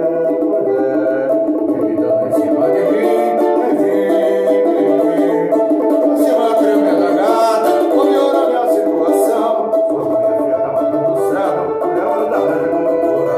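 Samba played on a banjo cavaquinho, the four-string Brazilian samba banjo, with lower bass notes stepping along beneath it.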